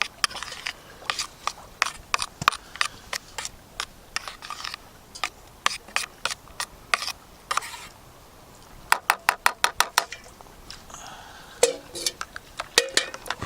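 Camp gear being handled: irregular clicks, knocks and scraping, with a quick run of about ten rapid clicks around the middle.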